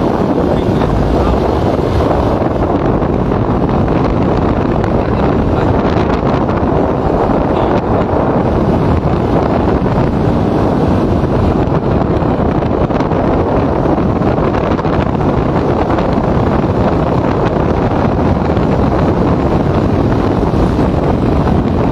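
Steady, loud wind rush buffeting the microphone of a moving motorcycle, with engine and road noise mixed in.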